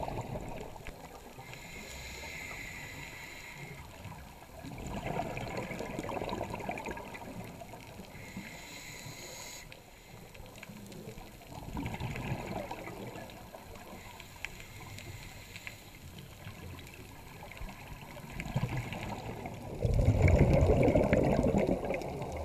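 Scuba breathing heard underwater: the hiss of regulator inhalations alternating with rumbling bursts of exhaled bubbles, roughly every six or seven seconds, the last bubble burst near the end the loudest.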